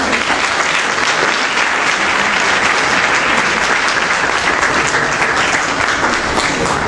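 Large indoor audience clapping and applauding, a dense, steady patter of many hands that dies down near the end.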